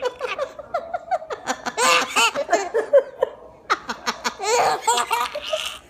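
High-pitched laughter in rapid repeated bursts, with a breathier stretch near the end.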